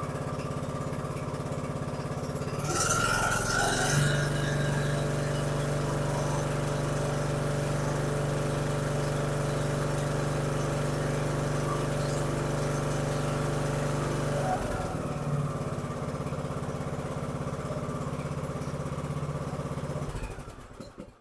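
Briggs & Stratton 21 hp riding-mower engine running smoothly after years of sitting, now running really good. About three seconds in the note rises and it runs faster, settles back near fifteen seconds, and it dies away just before the end.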